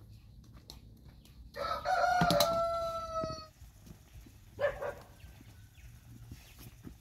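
A rooster crowing once: a long, loud call of about two seconds that holds its pitch and drops slightly at the end, with a sharp knock partway through. About a second later comes a brief, shorter call.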